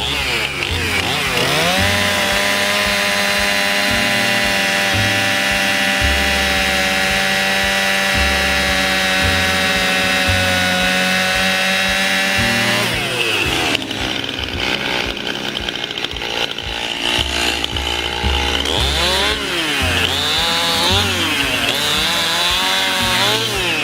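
Gas chainsaw running at high revs: it climbs a second or so in and holds steady for about eleven seconds, drops off, then is revved up and down several times.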